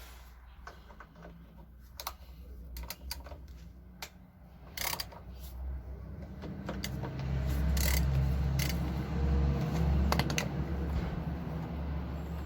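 Scattered metallic clicks and clinks, like tools and small metal parts being handled, over a low rumble that grows louder about halfway through.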